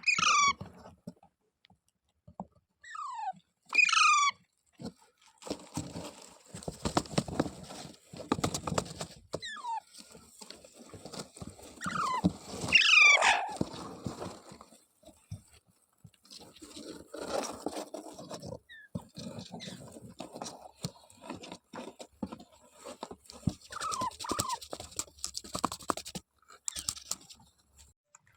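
A parrot giving a few short, shrill screeching calls, the loudest cluster about halfway through, with rustling and crackly scratching noises in between.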